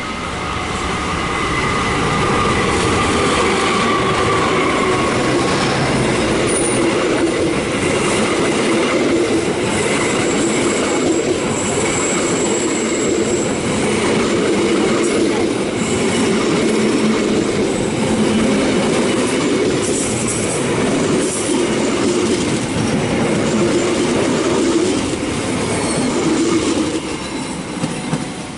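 A train moving past on the rails: steady wheel rumble with clacks over rail joints and brief high-pitched wheel squeals. It grows louder over the first few seconds and falls away near the end.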